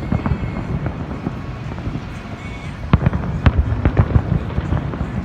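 Fireworks display exploding in quick succession: a continuous rumble of bursts with sharp bangs, loudest in a cluster about three to four seconds in.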